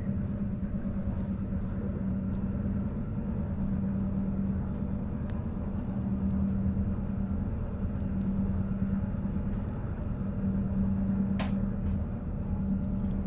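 Steady low rumble of a moving electric passenger train heard from inside the carriage, with a constant motor hum and a couple of faint clicks.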